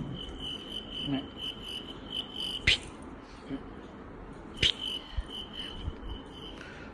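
A steady, high, pulsing chirp like a cricket's. It breaks off at a sharp knock a little under three seconds in and comes back after a second sharp knock near five seconds.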